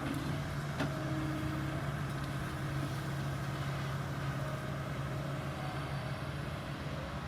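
Kobelco 220 excavator's diesel engine running steadily at a constant pitch, with a few faint higher tones over it and a brief knock about a second in.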